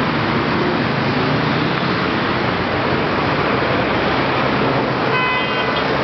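Steady rush of road traffic mixed with fast-flowing water in a concrete river channel. About five seconds in, a vehicle horn sounds once, briefly.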